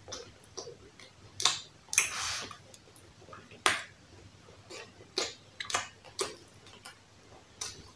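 Eating sounds: a scattering of short, sharp wet clicks and smacks from mouths chewing roast turkey meat, about seven in all, with a brief rustling smear after one about two seconds in.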